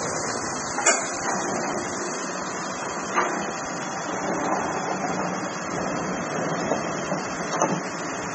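Steady rushing noise of a dust-suppression rain gun's water jet spraying, with single knocks about one, three and seven and a half seconds in.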